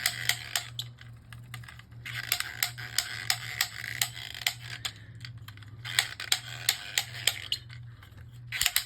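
Hasbro Precision Strike Beyblade launcher being wound up by its crank, the ratchet clicking rapidly in runs of a second or two with short pauses between.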